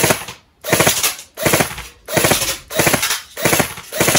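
Electric airsoft rifle (AEG) firing in three-round burst mode: rapid triples of shots with the motor and gearbox cycling, repeated about every two-thirds of a second, roughly seven bursts in a row.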